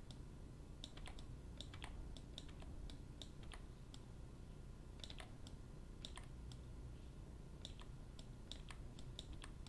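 Computer mouse and keyboard clicking irregularly, about two or three sharp clicks a second, while mesh faces are selected and deleted in 3D software. A faint low hum runs underneath.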